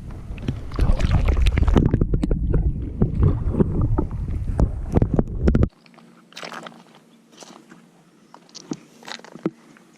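Splashing water and close handling noise while a small bass is fought and landed in shallow water: loud rumbling knocks and clicks on the microphone that cut off abruptly about six seconds in, leaving faint scattered clicks.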